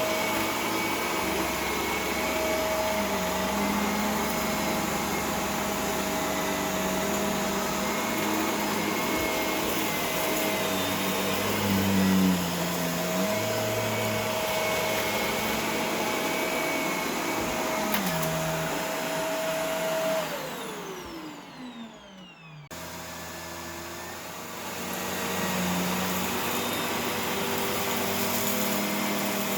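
Shark Rotator Professional Lift-Away upright vacuum running with a steady motor whine while it picks up sawdust. About two-thirds of the way through, the whine falls in pitch as the motor slows down. It then starts again and comes back up to speed.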